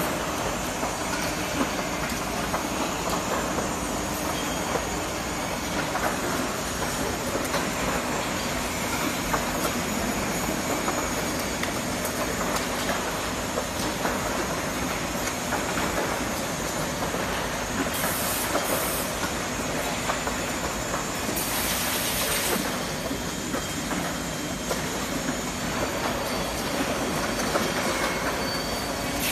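Automated soldering robot and its production line running: a steady mechanical din with light clicks, and short bursts of high hiss about two-thirds of the way in.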